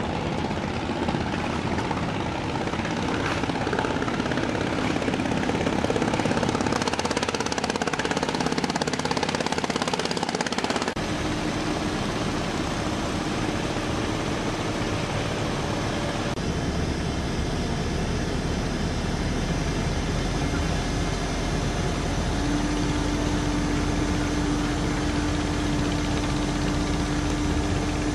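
Steady engine and machinery noise that changes character abruptly twice, about eleven and sixteen seconds in, with a steady hum growing strong in the last few seconds.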